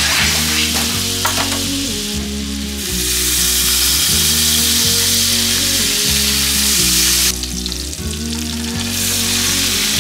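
Butter sizzling and foaming in a hot skillet, stirred around with tongs. The sizzle dips for a moment about seven seconds in, then picks up again. Background music with a steady bass line plays underneath.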